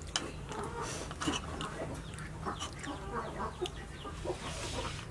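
Chickens clucking in the background, mixed with short clicks and mouth sounds from someone eating soup with a metal spoon.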